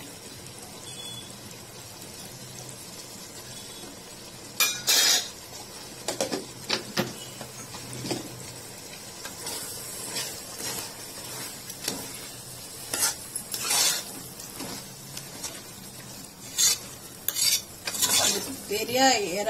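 Metal spoon stirring a thick prawn masala in a metal pot over a low, steady sizzle. From about five seconds in it scrapes and knocks against the pot's sides at irregular intervals.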